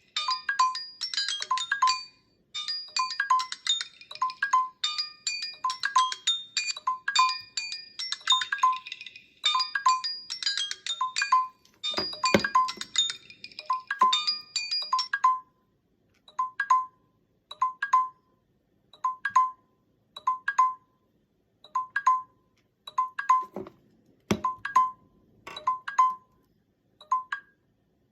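Several smartphones ringing at once, their electronic ringtones overlapping, until about halfway through; then one phone's ringtone carries on alone, a short chime repeating about once a second, and stops near the end. Two brief low sounds come in, about twelve seconds in and again about twenty-four seconds in.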